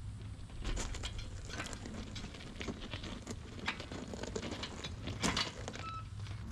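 Steel engine hoist rolled on its casters across plywood sheeting, with scattered clicks, knocks and rattles from the frame.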